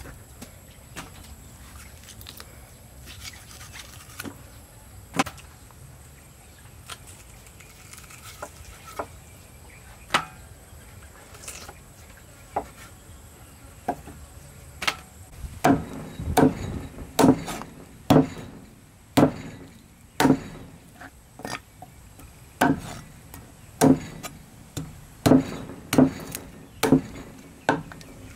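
Meat cleaver chopping pork ribs on a thick wooden chopping block. The first half has scattered light knocks. From about halfway there is a run of heavy chops, roughly one a second, as the blade cuts through the rib bones into the block.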